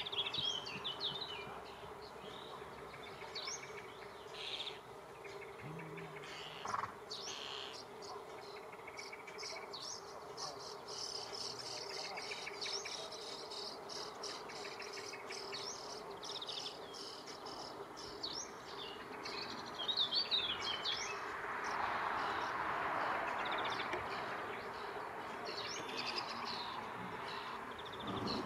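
Small birds chirping and twittering in short high calls over a steady low hum. A soft rushing noise swells for several seconds past the middle.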